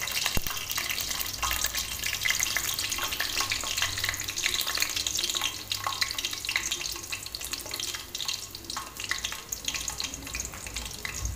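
Dried red chilli, curry leaves, small onions and fenugreek frying in hot sesame oil for a tempering: a steady sizzle full of small crackles, easing a little about halfway.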